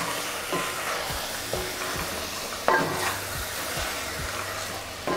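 Wooden spatula stirring thick paneer masala in a cast-iron Dutch oven while it sizzles steadily. The spatula scrapes and knocks against the pot now and then, loudest a little under three seconds in.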